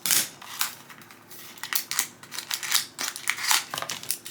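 Packaging being opened and handled by hand: a run of irregular rustles and crunches, some sharp, with no steady rhythm.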